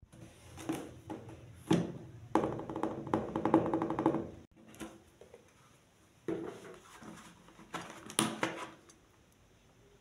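Knife-set box and its contents being handled on a wooden table: scattered knocks and thumps, with a dense run of rapid scraping clicks about two to four seconds in and more knocks around six and eight seconds in.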